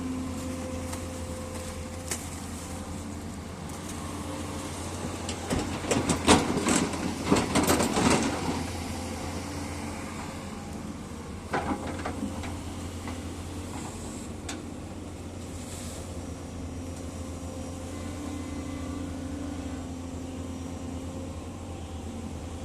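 Excavator diesel engine running steadily, with a burst of clanking and knocks about six to eight seconds in and a shorter one around twelve seconds.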